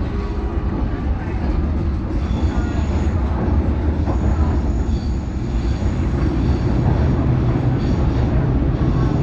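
London Underground District line train running, heard from on board: a loud, steady rumble of wheels on the track, with faint high-pitched wheel squeals coming and going from about two seconds in.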